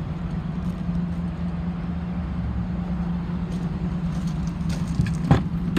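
Hummer H2's 6.0-litre V8 idling steadily, with a sharp knock about five seconds in.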